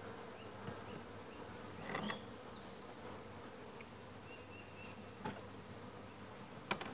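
Honey bees buzzing steadily around an open hive, with a few light knocks and clicks as the plastic feeder bucket is lifted off the wooden inner cover.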